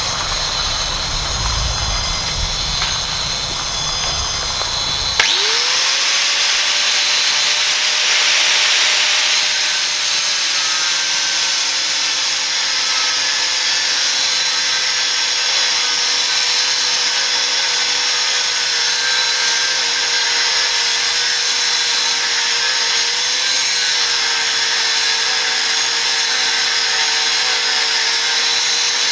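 Angle grinder fitted with a diamond cut-off wheel, running and cutting steel. About five seconds in, the sound changes abruptly with a click; the motor speeds up with a rising whine, then holds a steady whine over a harsh hiss.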